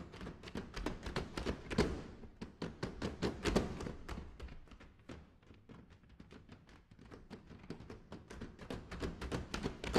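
Push brooms played as percussion on a wooden stage floor: a fast, rhythmic run of broom-head taps and sweeps, with louder thumps about two and three and a half seconds in.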